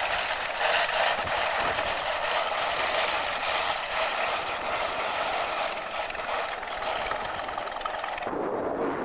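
The engines of a large twin-engined vintage biplane running on the ground with propellers turning, a steady engine drone.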